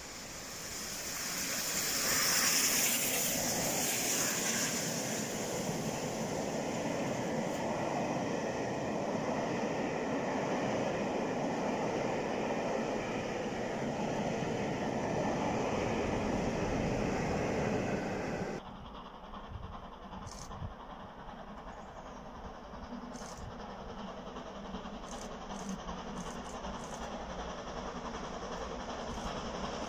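Steam-hauled train passing close by, led by the GWR Castle-class 4-6-0 locomotive 7029 Clun Castle. The loudest moment is its exhaust and steam hiss a couple of seconds in, followed by the steady rumble and clatter of the coaches. After a sudden cut about two-thirds through, a steam train is heard faintly approaching from a distance, growing slowly louder, with a few sharp clicks.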